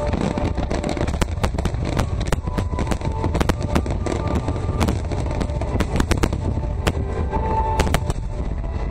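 Fireworks display: a dense stream of sharp crackling pops over a continuous low rumble of bursts, picked up on a phone's microphone.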